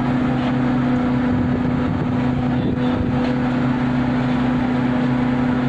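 Steady hum of running plant-room machinery, a constant low drone with a strong even tone, with a few faint knocks about halfway through.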